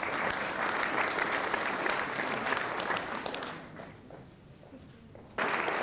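Audience applauding a graduate, a dense patter of many hands clapping that dies away about four seconds in, then starts again suddenly near the end.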